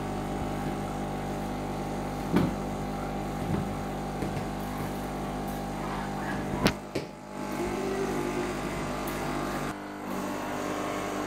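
Carpet and upholstery cleaning machine running with a steady motor hum, broken by a few sharp clicks and knocks. The sound dips briefly about seven seconds in.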